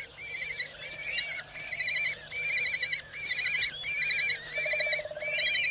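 Common kestrels calling at the nest during feeding: short trilled calls repeated about twice a second.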